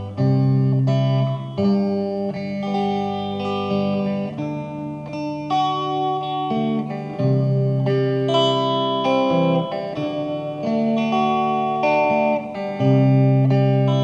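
Instrumental background music led by guitar, with held notes over a bass line that changes about every second or two.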